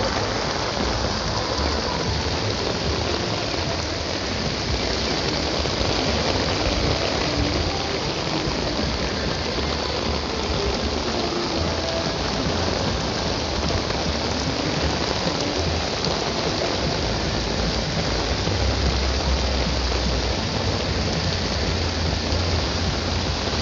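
Steady rain falling, an even hiss of water on hard surfaces, with a low rumble that comes and goes underneath.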